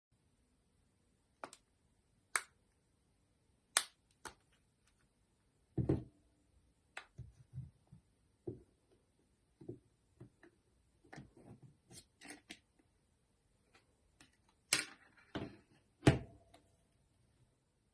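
Scattered sharp plastic clicks and taps from a Nokia Lumia 630 smartphone being handled and taken apart, with a duller knock about six seconds in. Near the end comes a short scraping rattle, then the loudest click.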